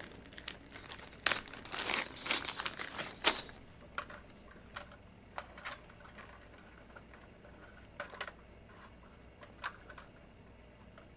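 Plastic packaging of wire connectors crinkling as it is torn open, densest for a few seconds, followed by scattered light clicks of small parts being handled.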